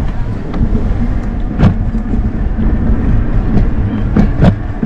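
Steady low rumble of a ride along a paved path, tyre and wind noise on the microphone, with a few short knocks over bumps in the surface.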